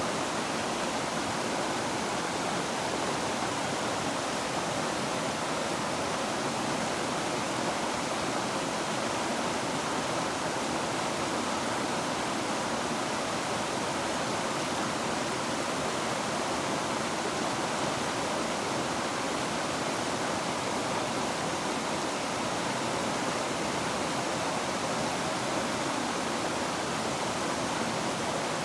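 River water flowing, a steady even rush of noise that never changes.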